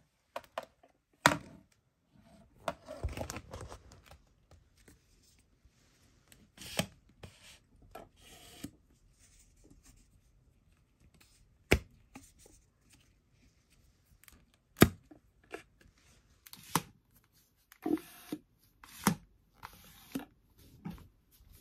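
A plastic toy air-pump ball shooter being handled: its pump handle is worked and the balls shift in the plastic tube. The result is scattered sharp plastic clicks and knocks with quiet gaps between them, and a short rustle near the start.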